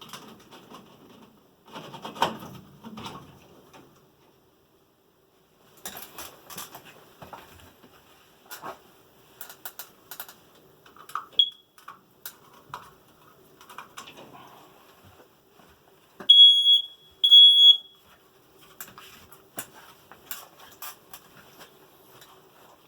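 Smoke detector beeping: one short high chirp about halfway through, then two loud, longer beeps in quick succession a few seconds later; its 9-volt battery is nearly empty. Scattered clicks and rustling run throughout.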